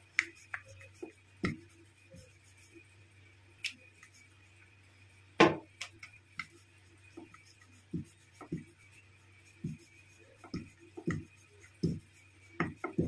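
Wooden rolling pin rolling out a small round of gujiya dough on a board: irregular clicks and knocks as the pin rolls and taps against the board, the loudest about five and a half seconds in, over a steady low hum.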